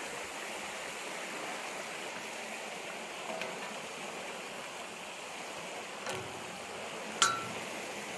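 A small stream rushing steadily, an even water noise. A single sharp click comes about seven seconds in.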